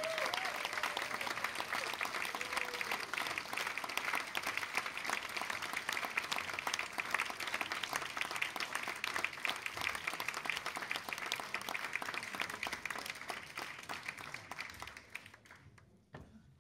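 Concert audience applauding steadily, the clapping dying away over the last couple of seconds.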